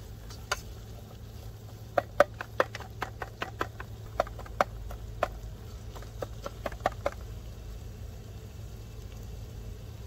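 Metal spatula tapping and scraping against a pan while onions are stirred and fried in hot oil: irregular sharp clinks, several a second at times, stopping about seven seconds in, over a steady low hum.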